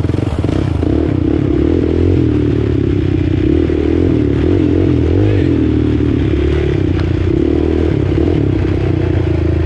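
Four-wheeler (ATV) engine running loudly at a steady idle, its pitch wavering slightly with light throttle blips.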